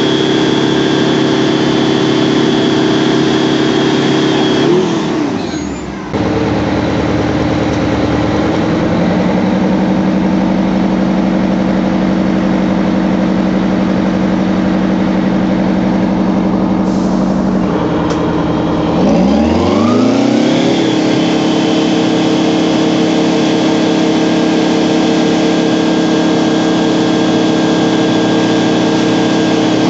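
ARFF crash truck's engine running hard to drive its fire pump while it discharges foam, over a steady hiss. The engine note drops about five seconds in, breaks off abruptly near six seconds, holds steady at a lower speed through the middle, then rises in pitch about nineteen seconds in and holds high again.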